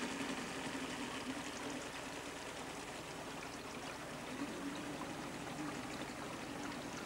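Floodwater swishing and lapping as a small boat moves through it, a steady rush of moving water.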